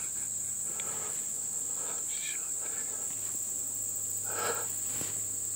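Late-summer insect chorus in the woods: a continuous high-pitched buzz that holds steady, with faint whispering about a second in and again near the end.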